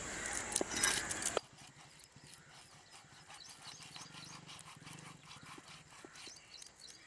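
Knife scraping scales off a rohu fish on a wooden block: rough, raspy scraping with sharp clicks that stops abruptly about a second and a half in. After that, only faint knife ticks and cuts into the fish.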